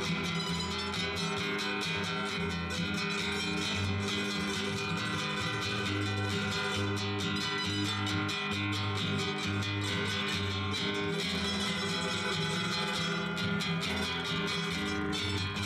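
Andean folk dance music played on strummed acoustic guitars, with a bass line under a steady rhythm.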